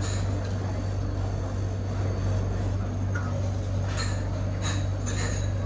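Steady low mechanical hum of refrigeration or ventilation machinery, with a few faint clicks of a metal ice-cream scoop against the tub about four to five seconds in.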